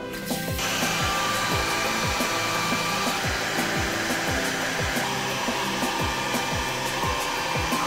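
Handheld hair dryer switched on about half a second in and blowing steadily, over background music with a regular beat.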